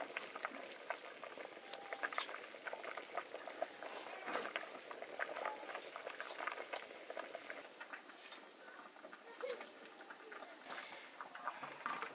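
Yellow liquid boiling hard in a black iron wok, a dense, irregular crackle of bursting bubbles.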